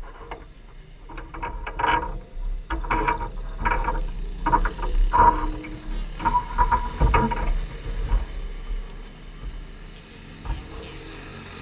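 Scattered clicks, knocks and short squeaks of hands and tools adjusting a quarter midget race car's chassis to tighten its loose handling, over a low steady rumble.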